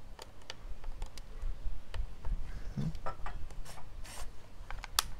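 Scattered small plastic clicks and rubbing as an Olympus IZM300 compact film camera is handled and its buttons are pressed, with one sharper click near the end.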